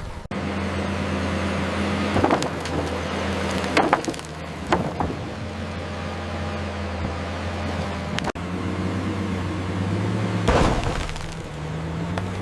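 Bulldozer's diesel engine running with a steady low drone, broken by several sharp cracks of wood snapping and splintering as trees give way.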